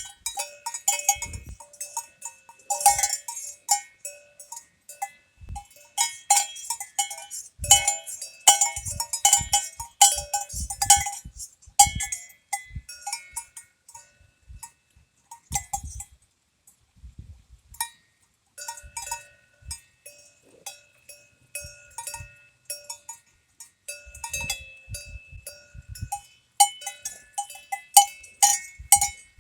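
Cowbells worn by cows clanking irregularly, several bells of different pitch ringing over one another. The clanking dies away for a few seconds about halfway through, then picks up again.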